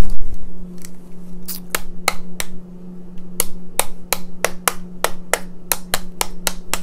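Sharp plastic clicks and taps from fingers tapping a Star Wars Force Link toy wristband worn on the wrist, irregular and about three a second after a louder knock at the start.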